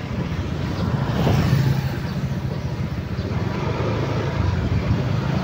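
Engine of a road vehicle running steadily while travelling along a street, a low even hum.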